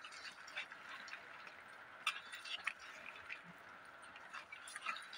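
Faint wet squishing and small clicks of a hand mixing boneless chicken pieces in a thick marinade in a steel bowl, with a few louder clicks about two seconds in and near the end.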